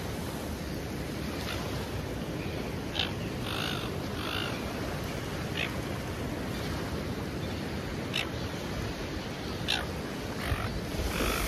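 Surf washing steadily with wind on the microphone, and about eight short harsh bird calls scattered through it.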